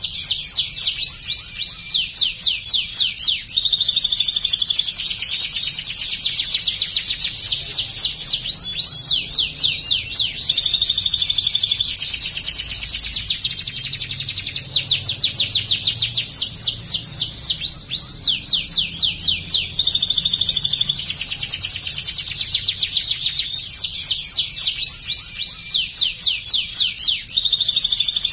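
White domestic canary singing a long, continuous song: runs of very fast, rapid-fire high notes alternating with steadier buzzy rolls, over and over. The song carries ciblek (bar-winged prinia) material, the canary imitating the prinia's rapid 'shooting' trills.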